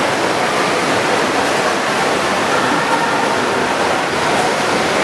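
Steady wash of water noise in a reverberant indoor swimming pool hall, as swimmers splash through the water doing front crawl.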